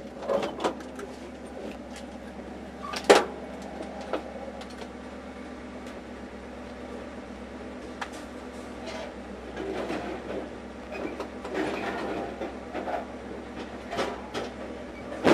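Scrap metal being pulled out of a pickup bed, heard from inside the cab: scattered clanks and bangs of metal pieces, the loudest about three seconds in, with rattling and scraping from about ten to thirteen seconds, over a steady low engine hum.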